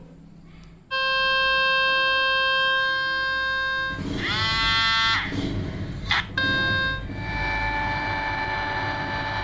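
Speaker-cleaning test tones played at full volume. A harsh steady electronic buzz starts about a second in. About four seconds in, a burst of rapidly falling sweeps cuts across it. After a brief drop-out the buzz returns, then a different steady buzzing tone takes over from about seven seconds.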